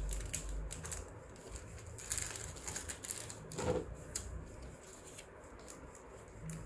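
Light clicks and rustling of costume jewellery and its packaging being handled.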